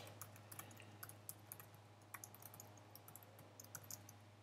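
Faint typing on a computer keyboard: quick, irregular key clicks as a sentence is typed, over a steady low hum.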